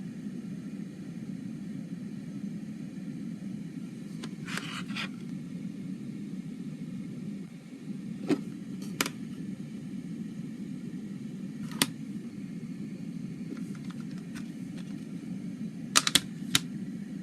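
Scattered sharp clicks and taps from a CD case being handled, including a quick cluster of three clicks near the end, over a steady low hum.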